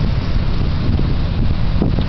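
Wind buffeting the microphone: a loud, steady low rumble with no clear siren tone above it.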